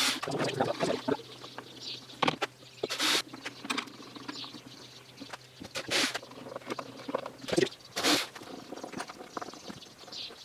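Workshop handling sounds: irregular scraping and rustling with several sharp knocks and clicks, as wooden parts and hardware are handled and fitted at a workbench. A faint low hum stops about eight seconds in.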